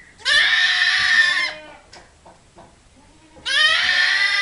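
A lamb bleating loudly twice, each call lasting over a second and starting with a short rise in pitch.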